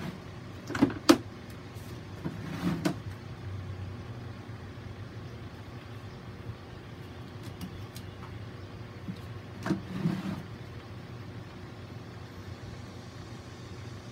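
A steady low hum with a few short knocks and clicks in small clusters, about a second in, near three seconds and again around ten seconds.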